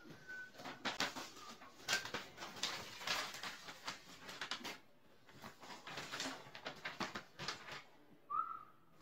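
Loose sheets of paper rustling and crackling as they are handled and leafed through, in short irregular bursts, with a brief high chirp near the end.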